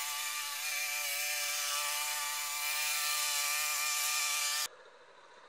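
Sabo petrol lawn mower engine running steadily, a buzzing drone with a slight waver in pitch. It cuts off abruptly about four and a half seconds in, leaving only a faint background.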